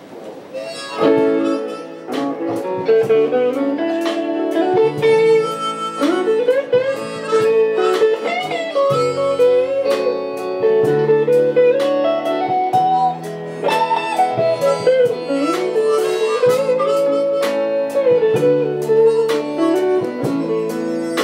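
Live band playing an instrumental passage: a harmonica carries a bending melody over electric guitars, bass guitar and drums, coming in about a second in after a quiet lead-in.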